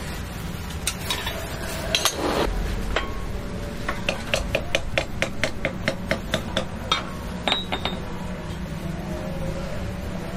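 A quick series of light hammer taps on metal, about four a second, each with a short ring, after a couple of louder knocks earlier on. A steady low hum runs underneath.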